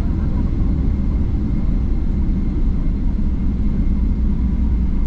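Steady low rumbling cabin noise inside a Boeing 777-200LR airliner, from the engines and airflow.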